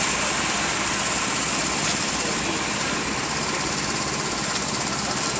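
An engine running steadily at idle, with a couple of faint ticks.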